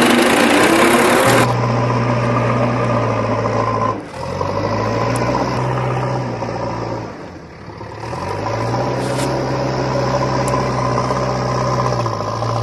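A truck or construction-vehicle engine drones steadily, dropping out briefly twice and revving back up each time. A loud hissing noise covers the first second and a half.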